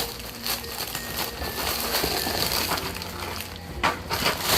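Rustling and crinkling of gift packaging as a set of children's clothes is unwrapped, with irregular crackles and small knocks.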